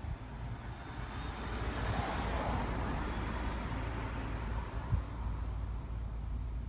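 A vehicle passing by: a swell of noise that builds about a second in, peaks around two to three seconds in and fades away over the next few seconds, over a steady low rumble. A single short knock about five seconds in.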